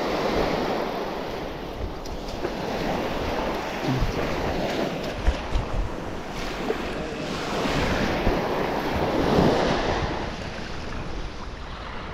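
Surf washing onto a beach, swelling and ebbing, with wind buffeting the microphone in a few low thumps about halfway through.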